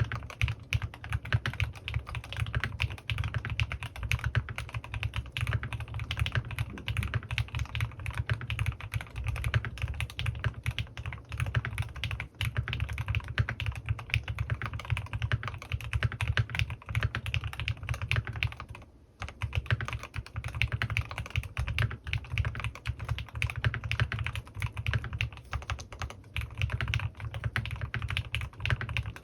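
Fast continuous typing on a CannonKeys Rekt1800 custom mechanical keyboard with lubed Gateron North Pole switches and PBT keycaps, the case dampened with foam; the keystrokes run in a dense stream with one short pause about two-thirds of the way through.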